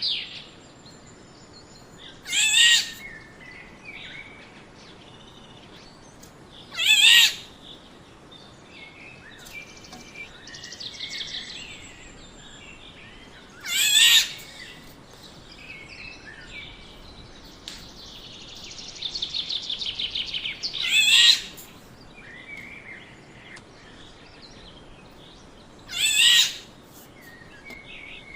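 Black-naped oriole giving five loud, harsh, nasal calls, each about half a second long and spaced several seconds apart. Softer rapid trilling chatter comes in between the calls.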